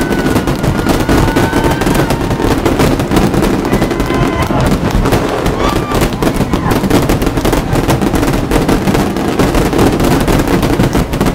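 Aerial fireworks display: many shells bursting in quick succession, a dense, continuous barrage of bangs and crackles.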